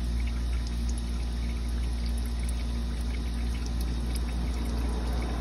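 Old engine oil trickling steadily out of the open drain hole of an aluminium oil pan: the last of the oil draining before the drain plug goes back in. A steady low hum lies underneath.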